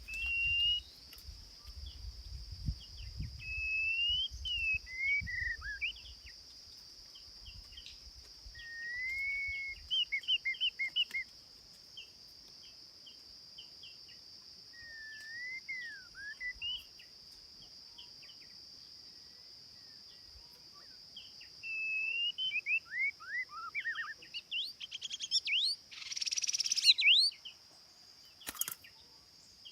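A songbird singing in separate whistled phrases, some notes sliding up and down and some in quick runs, with pauses of a few seconds between phrases. A steady high-pitched whine runs underneath, and a short harsher burst comes near the end.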